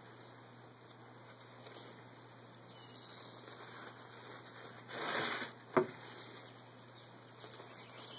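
Plastic wrap rustling and crinkling as it is peeled back while rolling a meatloaf log, with a louder rustle about five seconds in, followed by a single sharp click.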